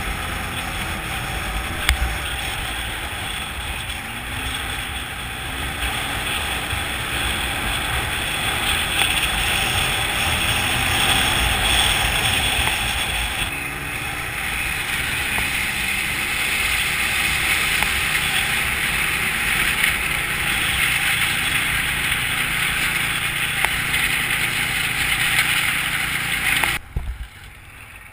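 Polaris Sportsman ATV running under way, its engine rumble mixed with a dense rushing noise, until the sound drops off sharply near the end.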